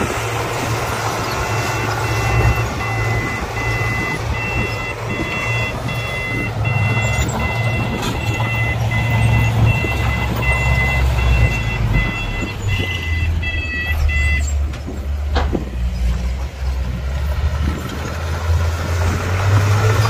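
Heavy diesel earthmoving machinery running with a low, steady engine drone, while a reversing alarm beeps in regular repeated pulses and stops about three quarters of the way through. A single sharp clank follows shortly after.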